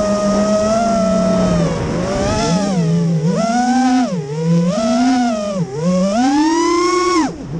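Brushless motors and propellers of an FPV quadcopter, heard from the camera mounted on it: a steady high whine that, from about two seconds in, swings down and up in pitch three times with the throttle, then climbs and drops off sharply just before the end.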